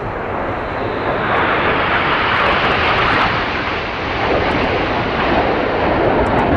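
Jet engine noise from BAE Hawk T1 display jets passing over: a loud, even rush that swells over the first couple of seconds and stays strong.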